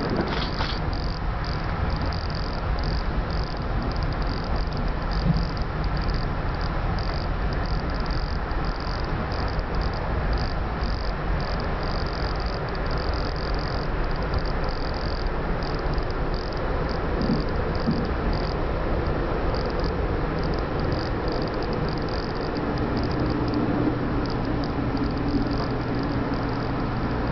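Cabin noise of a Twilight Express passenger coach running along the line: a steady rumble of wheels on rail, with a high, rapid chirping that comes and goes over it. Near the end a steady low hum joins in.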